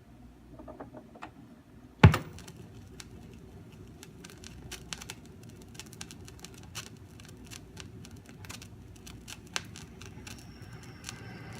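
Turntable stylus set down onto a vinyl record with one sharp thump about two seconds in, followed by the crackle and pops of the record's surface over a low hum. Near the end a high whine begins to come in, the start of the record's music.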